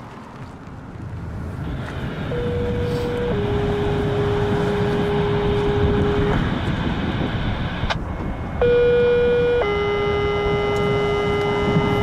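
Two-tone sequential fire pager tones over a scanner radio, toning out a fire station for dispatch. A short higher tone is followed by a longer, slightly lower steady tone, and the pair sounds twice, the second time louder. A low rumble of traffic runs underneath.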